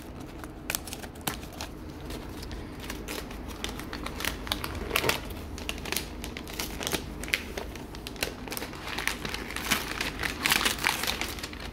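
Paper wrapping crinkling and rustling as it is unfolded from around a wooden box, in irregular crackles that grow busier near the end.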